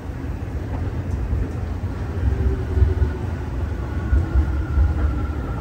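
Steady low rumble while riding an up escalator in a subway station, with faint thin whining tones coming in about halfway through and stepping slightly lower.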